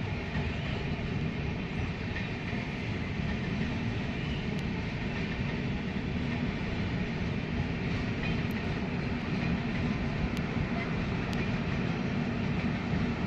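An express passenger train running on the rails: a steady, even rumble of wheels on track with no horn.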